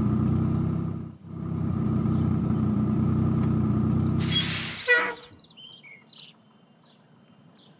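Cartoon truck engine running steadily, dipping briefly about a second in, then a short air-brake hiss about two-thirds of the way through as it stops. Afterwards birds chirp faintly.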